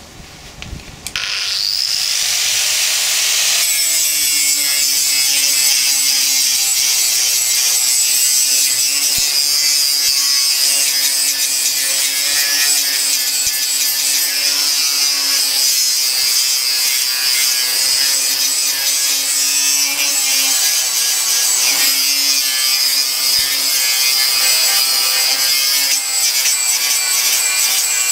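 Angle grinder with a 36-grit flap disc spinning up with a rising whine about a second in, then grinding down welds on a square steel box-section frame: a steady high whine over a harsh, continuous grinding noise.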